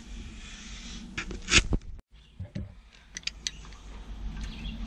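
Handling noise from fitting well pipes and metal hose clamps onto a cast-iron jet pump: a few sharp clicks and knocks, the loudest between one and two seconds in, then lighter clicks as locking pliers work a clamp.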